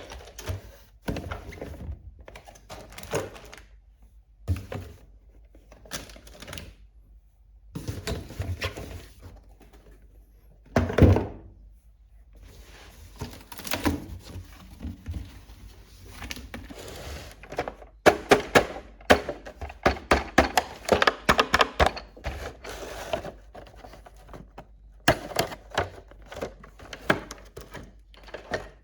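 Small plastic toy kitchen pieces being handled, clicked together and set down on a hard surface: scattered taps and clicks, one loud thunk about eleven seconds in, and a dense run of quick clicks past the middle.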